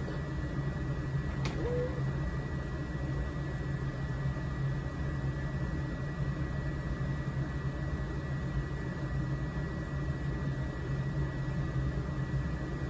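Steady low hum of a running blower fan, with a faint constant high whine; one brief click about a second and a half in.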